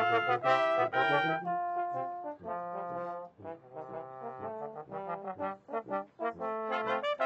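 Brass band music, trombones and trumpets playing full chords in a steady rhythm, with a softer passage in the middle that swells back up near the end.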